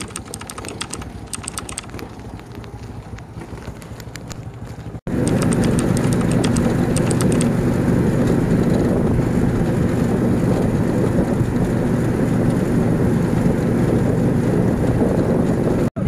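Riding a bentor, an Indonesian motorcycle-powered pedicab. From about five seconds in, its motorcycle engine runs steadily under loud road and wind noise. Before that there is a quieter stretch with light clicking.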